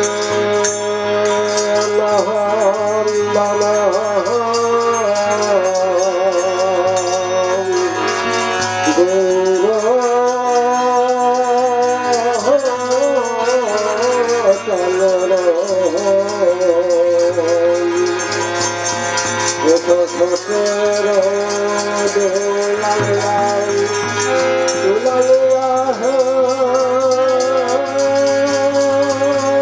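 Live folk song: men singing a melody with vibrato into microphones, accompanied by a harmonium's steady drone and a hand-played barrel drum, with a jingling rattle keeping time.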